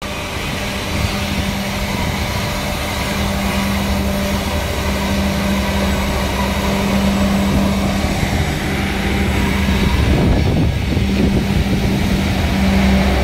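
2TE116U twin-section diesel locomotive with its 5D49 diesel engines running under load as it hauls a train of tank cars, a steady low hum and rumble that grows louder as it approaches. A brief rushing noise swells about ten seconds in.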